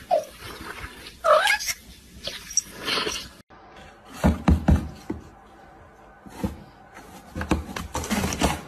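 A domestic cat gives two short meows in the first two seconds. After a sudden cut, two clusters of low thumps follow, about a second in the middle and again near the end.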